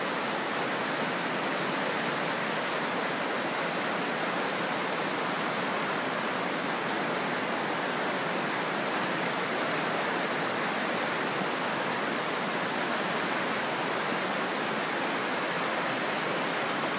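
Steady rushing of a river in spate, running high and fast over rapids after heavy rain.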